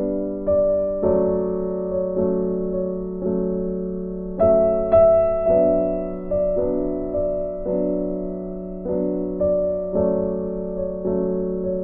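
Background music: a slow, gentle electric piano playing sustained chords, a new chord or note about every half second.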